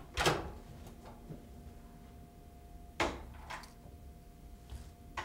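A door being opened and shut: a clunk just after the start, another about three seconds in, and a few lighter knocks between.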